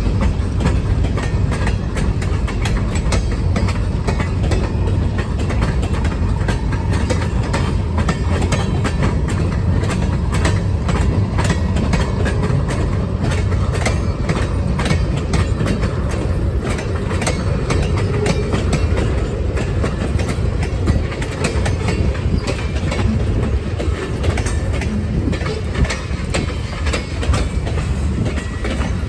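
Freight train cars rolling past at close range: covered hoppers, a tank car and open coal gondolas. Steel wheels on rail give a steady low rumble with a dense run of clicks and clacks as the wheels cross rail joints.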